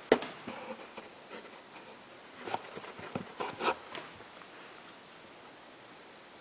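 A cat scratching and shifting inside a cardboard box: a tap just after the start, then a short cluster of scratches around the middle, then quiet.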